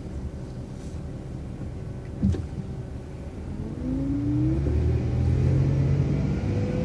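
City bus running, heard from on board, with a single knock about two seconds in. From about halfway through, the bus accelerates: its drone grows louder and a whine rises in pitch.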